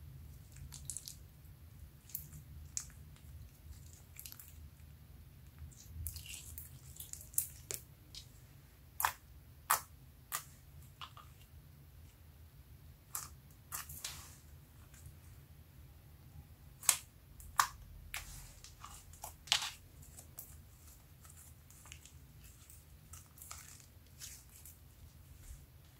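Slime being squeezed, poked and folded by hand, making irregular sharp wet clicks and pops at uneven intervals over a faint low hum.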